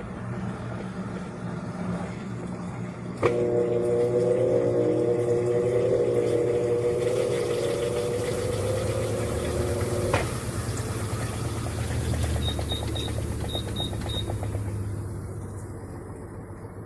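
Electrolux Essencial Care LES13 washing machine running with a low hum. A click about three seconds in starts a louder motor whine that rises in pitch over and over, and it stops with another click about ten seconds in. Six short high beeps follow in two groups of three, then the running noise fades.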